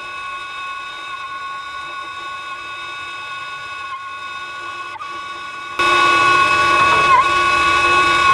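Steady high whistle of gas flowing while a compressor line is brazed under a nitrogen purge, over a hiss; it jumps much louder suddenly about six seconds in and wavers briefly in pitch about a second later.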